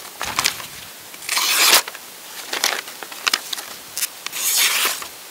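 Paper slicing: a freshly sharpened knife blade drawn through a sheet of printer paper in two hissing strokes, one about a second in and one near the end, with paper rustles and small clicks between.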